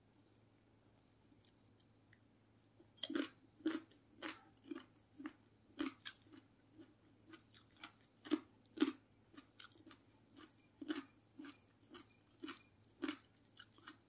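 Chewing a mouthful of fried chicken and raw vegetables: short, crunchy bites about twice a second, starting about three seconds in.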